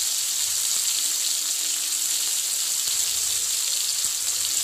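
Bata fish steaks shallow-frying in hot mustard oil in a wide kadai: a steady sizzle as the first side cooks through.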